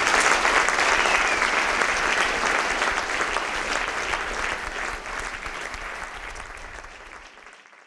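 Audience applauding, the clapping dying away steadily over the last few seconds and fading out near the end.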